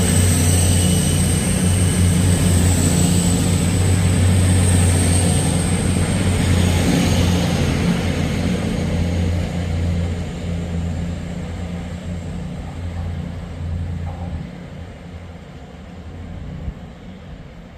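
East Midlands Railway Class 222 Meridian diesel multiple unit running past and drawing away, its underfloor diesel engines giving a steady low drone with a thin high whine. The sound fades gradually as the train leaves.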